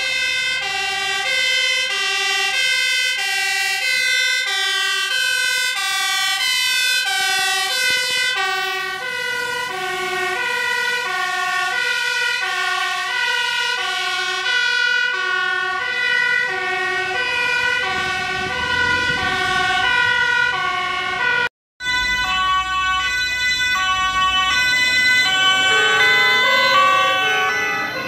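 Fire engines' two-tone sirens sounding loudly, switching steadily between a high and a low note about every half second. The sound cuts out for a moment about three quarters of the way through, then another vehicle's two-tone siren carries on.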